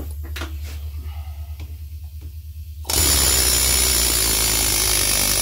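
Pneumatic air hammer hammering on a bolt in the crankshaft end, trying to vibrate a rust-seized pulley off a Kawasaki 15.5 hp engine; it starts about three seconds in and runs loud and continuous. The pulley is not coming free. Before it, a low steady hum and a few light taps.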